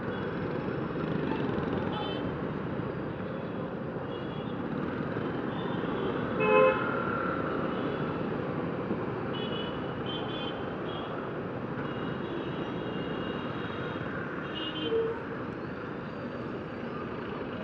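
Steady road-traffic noise heard while riding through city traffic, with a vehicle horn honking loudly about six and a half seconds in and a shorter honk near fifteen seconds, and fainter horns in between.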